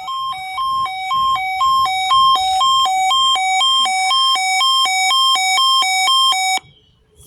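Weather alert radio's siren test: a loud electronic hi-lo alarm alternating between two pitches about twice a second, which cuts off suddenly near the end.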